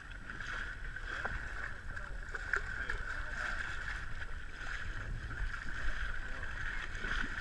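Motorboat under way: its engine runs steadily, with water rushing past the hull.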